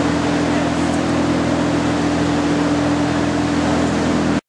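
Steady mechanical hum with a rushing noise, from a running machine such as a ventilation fan; it stops abruptly near the end.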